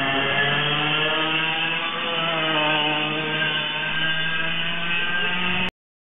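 Yamaha KT100S 100cc two-stroke kart engine running hard at high revs. Its note drops about two seconds in and then climbs again as the kart slows for a corner and accelerates out. The sound cuts off suddenly near the end.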